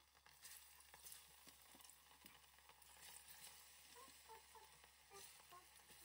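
Banana pieces deep-frying in a pot of hot oil: a faint, steady sizzle with small crackles.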